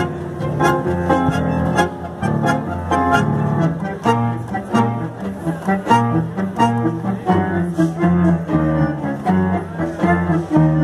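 A tango sextet playing live: violins carry the melody over a double bass, with a bandoneon, the beat marked by regular accented strokes.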